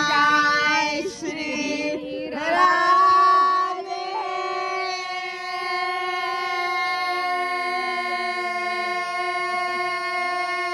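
Singing: voices with wavering pitch for the first few seconds, then a long, steady held note to the end, with a line sliding down in pitch beneath it partway through.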